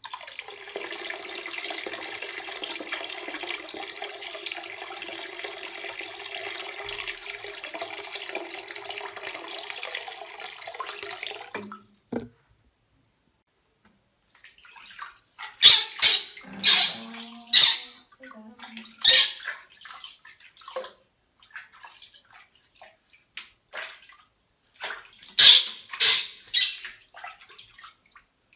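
A tap runs steadily into a sink basin already full of water for about twelve seconds, then stops. After a short pause, water is splashed and scooped in the sink over a baby monkey being bathed, in loud bursts of splashing.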